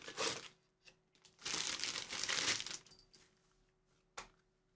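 Cardboard box being opened by hand and its packaging rustled and crinkled: a short spell at the start and a longer one about a second and a half in. A single light click comes near the end.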